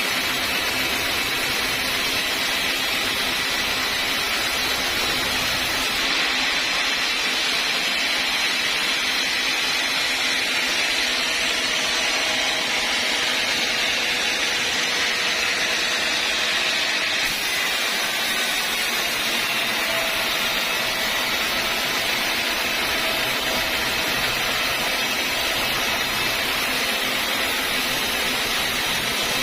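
Sawmill saw running with a steady, even machine noise that does not let up.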